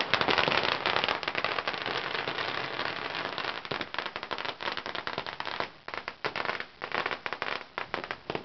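A string of firecrackers going off in a rapid, dense crackle of sharp bangs, thinning after about five and a half seconds to scattered separate pops before it stops.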